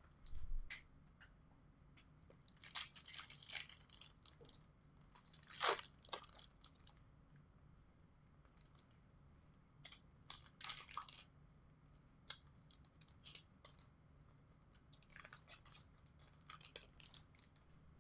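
2021 Bowman Chrome baseball card box and pack wrappers being torn open and handled. The plastic crinkles and rips in short crackly bursts, several times over.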